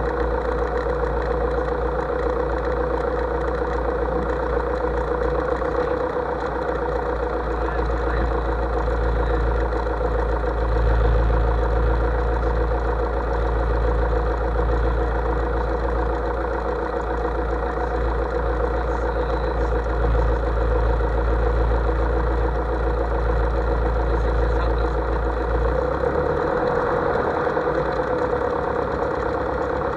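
Light single-engine airplane's piston engine and propeller running steadily; the low drone shifts down about 26 seconds in.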